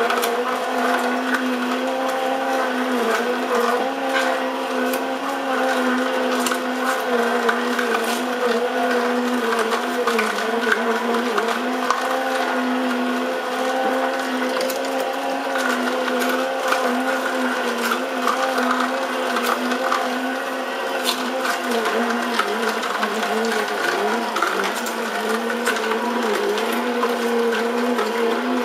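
Sharp EJCP10BJR slow juicer running, its motor giving a steady hum that wavers slightly as the auger crushes carrots, with scattered sharp crackling clicks from the pieces being ground.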